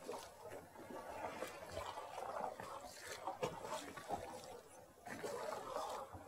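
Water lapping and trickling close by, an uneven wash with a few faint ticks.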